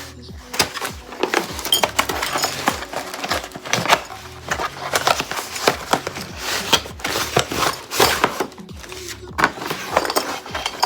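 Kitchen accessories and their packaging being handled during unboxing: a busy run of short knocks, clicks and rustles.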